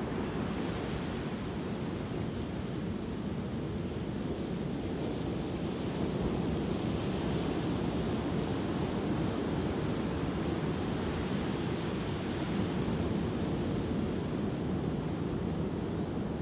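Ocean surf breaking on a sandy beach: a steady wash of waves with no single crash standing out.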